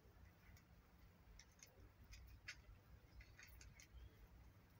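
Cat chewing dry kibble: faint, irregular crunching clicks.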